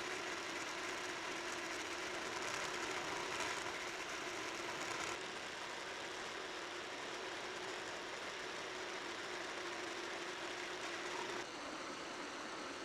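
A metalworking machine tool running steadily, a motor hum under dense cutting noise, the sound changing abruptly about five seconds in and again near the end.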